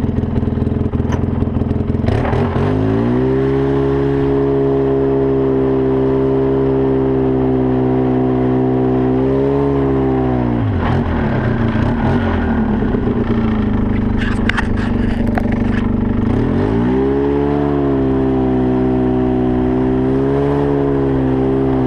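ATV (four-wheeler) engine running under load while riding up a snow-packed trail. The revs climb a couple of seconds in and hold steady, fall away around the middle, then climb and hold again near the end. A few short scrapes and clicks come in the low stretch.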